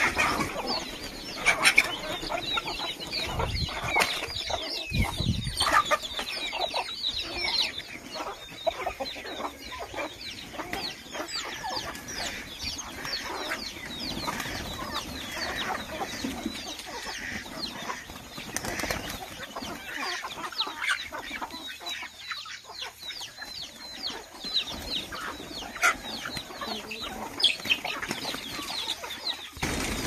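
A mixed flock of chickens and pigeons feeding on grain: many short, high chirps and peeps, hens clucking, and bursts of wing flapping as pigeons take off and land. A few low thumps come a few seconds in.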